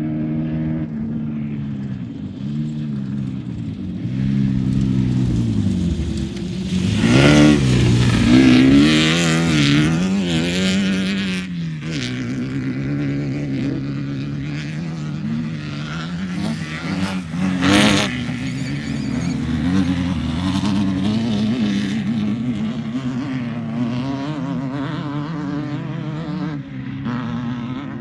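Class 1600 desert race car's air-cooled 1600 cc VW engine running, its pitch rising and falling again and again as it accelerates and backs off, louder for a few seconds near the first third. A single sharp knock about two-thirds of the way through.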